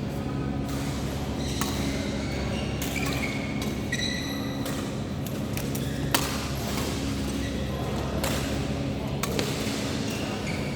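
Badminton play in a hall: a few sharp racket hits on the shuttlecock at irregular intervals and short high squeaks, over a steady low hum and faint voices.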